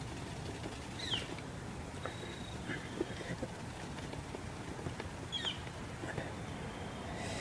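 Outdoor ambience with a bird giving two short falling chirps, one about a second in and another past five seconds. Under it are faint scattered taps and scrapes of a wooden stick being worked by hand.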